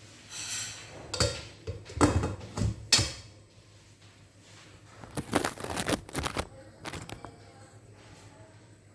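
Scattered knocks and clatter of objects being handled, a few separate taps in the first three seconds and a denser burst of rattling about five to six and a half seconds in.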